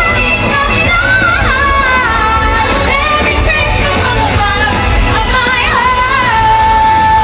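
Loud stage-show music with singing: a singer's voice moving through a melody over a steady backing track, ending on a long held note near the end.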